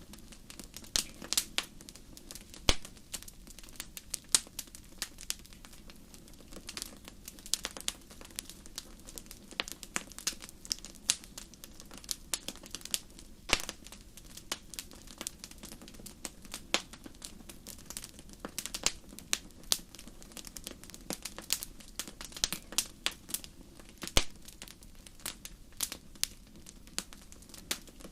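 Wood fire crackling in a fireplace: irregular sharp pops and snaps, sometimes several in quick succession, over a low steady rumble.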